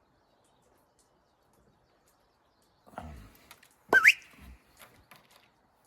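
A person whistling once to call a dog, about four seconds in: a short, loud whistle that rises sharply in pitch. A low, dull rumble comes just before it.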